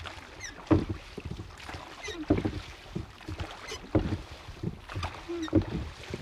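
Wood creaking with short squeaky glides and dull hollow knocks, the loudest hits coming about every second and a half over a faint hiss.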